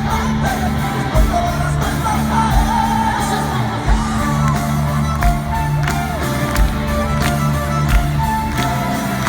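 Folk-metal band playing live in a large arena hall, with a slow kick-drum beat about every 1.3 seconds under held bass notes and a melody line, and some whoops and shouts from the crowd.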